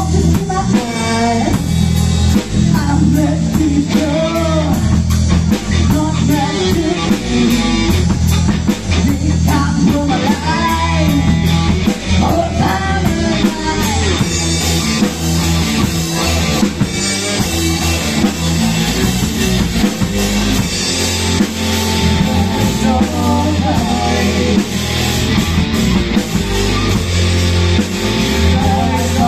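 Live rock band playing with guitar, drum kit and a singer. The cymbals grow more prominent from about halfway through.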